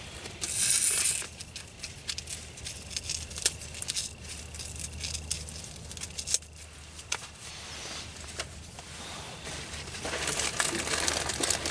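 Handling noise from a nylon military assault pack: fabric rustling and scraping with scattered small clicks and knocks. About ten seconds in, a louder stretch of rustling as a hand rummages inside the pack's main compartment.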